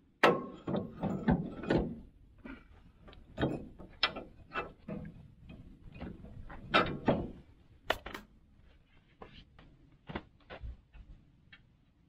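Trailer hitch ball mount being handled in a pickup's receiver hitch: irregular metal clanks, clicks and rattles, loudest near the start and again about seven to eight seconds in.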